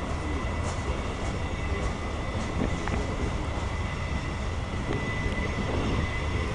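CSX mixed freight train's cars rolling past, a steady rumble with a thin, faint high whine running over it and a few light clicks.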